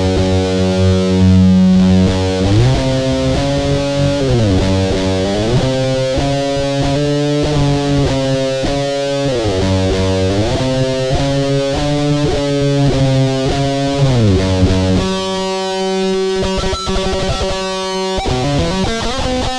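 Electric guitar played through a Boss GT-1 multi-effects processor on its heavily distorted "Blade Metal" patch. Held distorted notes slide down and back up the neck, then change about 15 seconds in to short, choppy chords.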